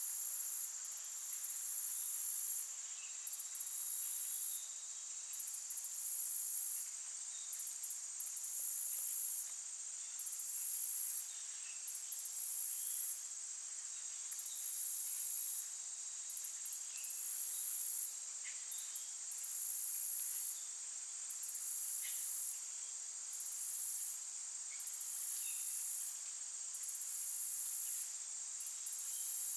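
Insect chorus: high-pitched trilling that pulses on and off about every two seconds over a steady high hum, with faint short chirps scattered through it.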